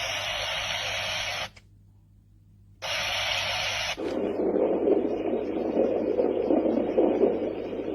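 Portable white noise machine playing steady white noise (a bright hiss), which drops out for about a second and a half and comes back, then about four seconds in switches to a deeper, uneven rushing noise as a different sound setting.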